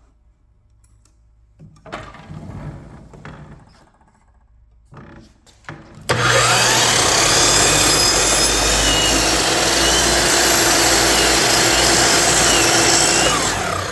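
A power tool working wood starts abruptly about six seconds in and runs steadily with a motor hum for about seven seconds, stopping just before the end. Before it there are only faint handling sounds.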